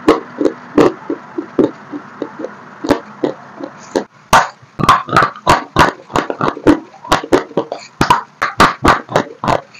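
Close-up crunching of dry white chalk blocks being bitten and chewed: a quick run of sharp crunches, about two to three a second, growing louder and denser about four seconds in.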